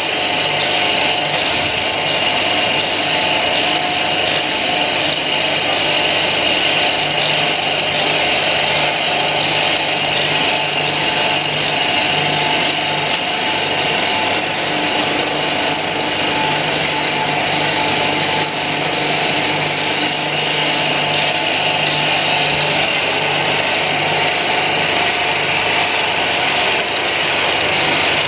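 Rod chamfering machine for engine-valve stems running steadily: an electric motor hum with a high whine over it, and a faint regular ticking about twice a second.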